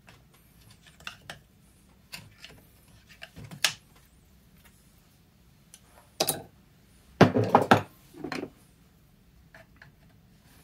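Metal hand tools clinking, knocking and scraping against a Sea-Doo jet pump housing as the cut wear ring is worked loose with a flat tool. The knocks come in scattered groups, the loudest clatter about seven seconds in.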